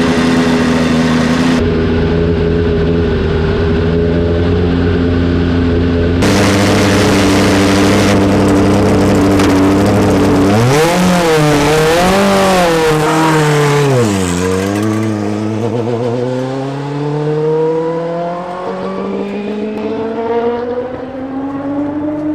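Turbocharged Toyota 4A-GE four-cylinder in an Atlantic formula car: it runs at a steady speed, is blipped up and down several times, then pulls away with the engine note climbing steadily as it gets quieter.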